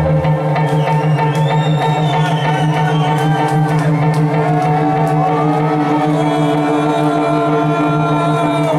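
Electronic dance music from a live DJ set, in a breakdown: held synth chords with a synth melody sliding up and down in pitch, and the deep bass and kick drum dropped out.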